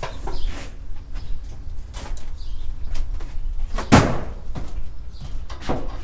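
Knocks and thumps of produce boxes being set down and shifted about on a produce trailer, several scattered hits with the loudest about four seconds in, over a steady low rumble.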